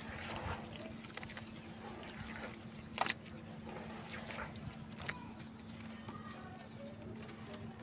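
Hands squelching and kneading wet red-dirt paste, with a sharp snap about three seconds in and a smaller one a couple of seconds later. Near the end, dry crumbs from a crumbled block fall into the wet mix.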